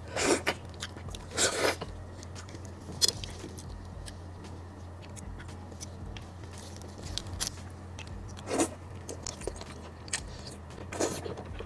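Close-up eating of raw marinated red prawns: short wet slurps as the prawn heads and juice are sucked into the mouth, two in the first two seconds and two more later, with small mouth clicks and quiet chewing between.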